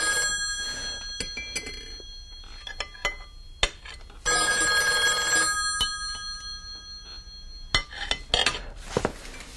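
Telephone bell ringing unanswered. The tail of one ring ends just after the start, a second ring follows about four seconds in and lasts about a second and a half, and a few light clinks come near the end.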